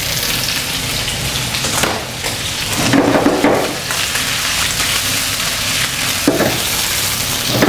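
Duck breast slices sizzling in hot oil in a wok with chopped garlic and ginger, stirred about with a utensil.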